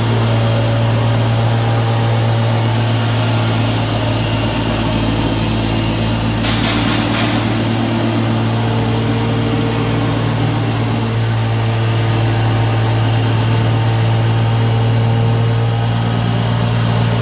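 Mini continuous olive oil extraction machine running with a steady, loud low hum, and a brief hissing rush about six to seven seconds in.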